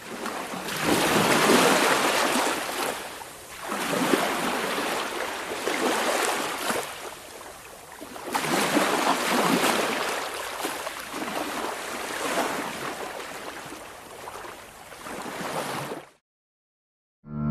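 Ocean waves washing on a shore, the surf swelling and drawing back in surges a few seconds apart, then cutting off suddenly near the end.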